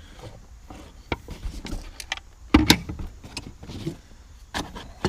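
Rummaging through boxes of small parts: scattered clicks, knocks and rustling, with two louder thumps about two and a half seconds in and a sharp knock near the end.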